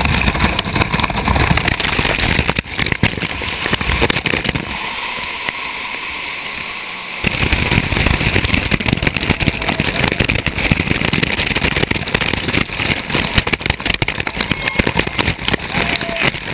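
Whitewater of a canyon waterfall pouring and splashing over a body-worn camera as its wearer goes down through the falls, buffeting the microphone. The water noise thins for a few seconds, then comes back heavier from about seven seconds in.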